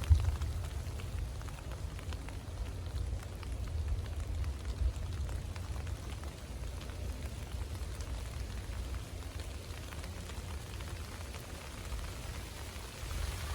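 Steady rain falling, with scattered drop ticks over a constant low rumble. A brief sharp knock right at the start.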